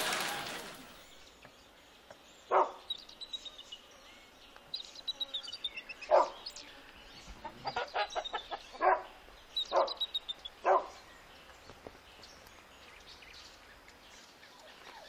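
A dog barking in single barks a few seconds apart, with birds chirping, as music fades out at the start.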